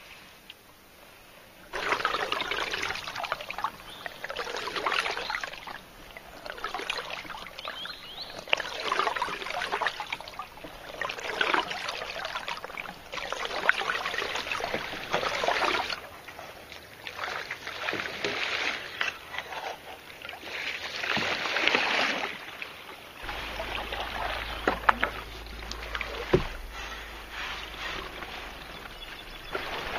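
Wooden canoe paddle pulling through calm river water. A swish and trickle of water comes with each stroke, about one stroke every two seconds. Near the end the strokes stop, leaving steadier water sound with a low rumble and a few sharp knocks.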